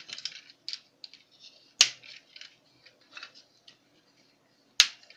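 Hard plastic parts of a transforming toy robot being fitted together: small clicks and scraping of plastic, with two sharp snaps, about two seconds in and near the end, as the legs click onto the body.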